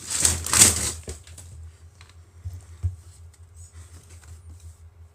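Handling noises: a short rustle in the first second, then scattered light clicks and taps as small parts are moved and set down.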